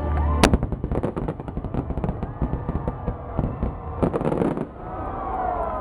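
Fireworks going off: a loud boom about half a second in, then rapid crackling and popping for several seconds, with a denser burst of crackle around four seconds in before it thins out near the end.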